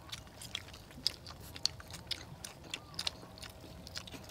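People chewing and biting into crispy batter-fried chicken legs: irregular, sharp crunches of the fried coating, several a second.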